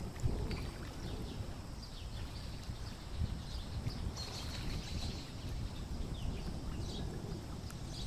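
Steady low rumble of wind and water, with faint, high, short falling bird chirps several times, clearest about four seconds in.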